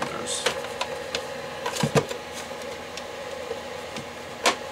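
Carrying handle of a bench power-supply case clicking and knocking as it is swung to a new position, a few sharp knocks with the loudest about two seconds in and near the end. Under it, the steady hum of the supply's small cooling fan.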